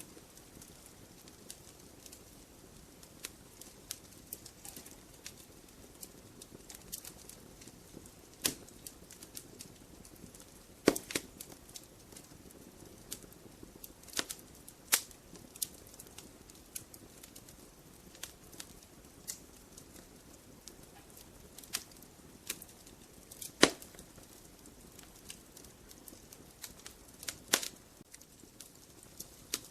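Logs burning in a fireplace, crackling with irregular sharp pops over a faint hiss of flame, a few pops clearly louder than the rest.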